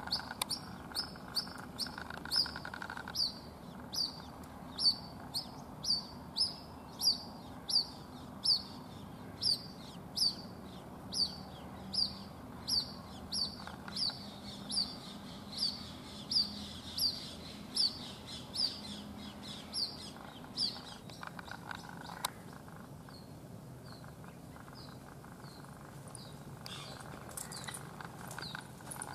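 White-breasted waterhen chick calling over and over: short, high-pitched peeps, each falling in pitch, a little more than one a second. The calls stop about two-thirds of the way through, then a few fainter ones come near the end.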